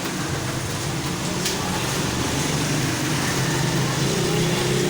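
Steady low mechanical hum with an even hiss, like a fan or air-conditioning unit running in the room.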